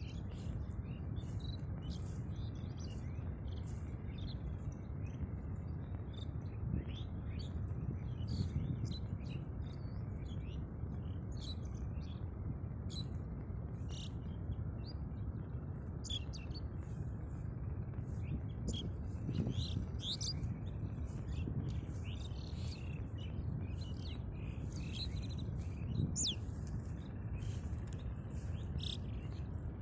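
Many small birds chirping, short high calls scattered and overlapping, over a steady low rumble of background noise.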